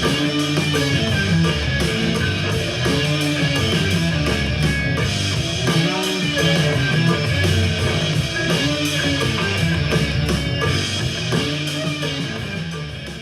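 Rock music with guitar, a heavy bass line and a drum kit, played back on a portable Bluetooth speaker as a sound test, fading out near the end.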